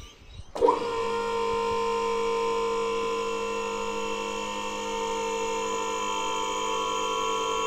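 Electric hydraulic pump motor of a vehicle hoist starting about half a second in and running with a steady hum as it lifts a heavy pickup's wheels off the ground.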